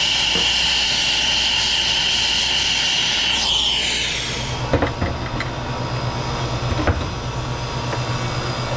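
Air-acetylene brazing torch burning with a steady hiss and a high whistle as it heats a brazed copper refrigerant line joint on a compressor to unsweat it. The hiss ends with a falling sweep about three and a half seconds in, and a few sharp metallic knocks follow as the line is worked free.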